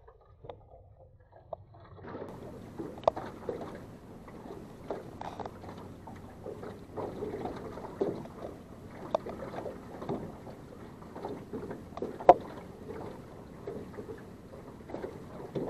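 Water lapping against the hull of a small aluminum fishing boat, with a few sharp knocks scattered through it, the loudest about twelve seconds in.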